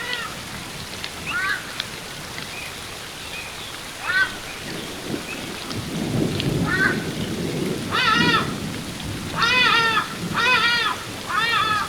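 Ibis calling: short pitched calls, each arching up and down, scattered at first, then louder groups of calls about eight to eleven seconds in. Under them runs the steady rush of a waterfall.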